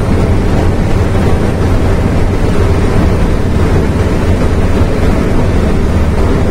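Scania-Vabis 'Jacaré' truck's diesel engine running steadily while pulling a load of about 12 tonnes, heard as a loud, even drone from inside the cab.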